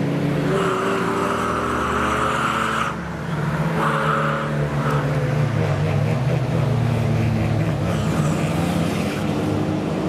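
Cars driven hard on a racetrack passing one after another, engines revving with rising and falling pitch. The sound changes abruptly about three seconds in, where another car takes over.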